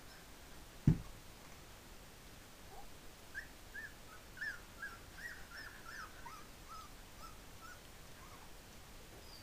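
Three-week-old Pumi puppies whimpering in a string of short, high squeaky cries, mostly in the middle stretch. A single thump comes about a second in.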